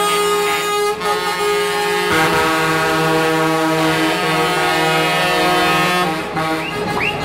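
Truck air horns blasting continuously, one horn chord giving way to a lower one about two seconds in, the horns stopping about six seconds in.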